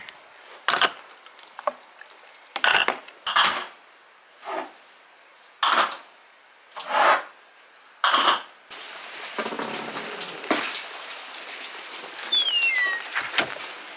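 Glass jars clinking and knocking as they are handled, about eight separate clinks over the first eight or nine seconds. Then a steady patter of rain sets in, with a short high descending chirp near the end.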